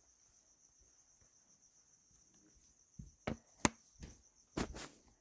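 A faint steady high-pitched whine. About three seconds in, a handful of short sharp clicks and knocks follow, handling noise from the hand-held flashlight and phone.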